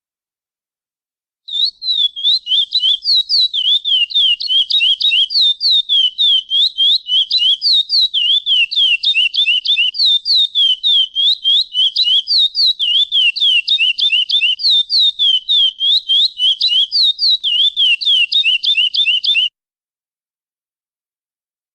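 Lesser seed-finch (curió) giving a long, rapid run of clear down-slurred whistled notes, several a second. The notes wander slightly up and down in pitch and stop abruptly near the end.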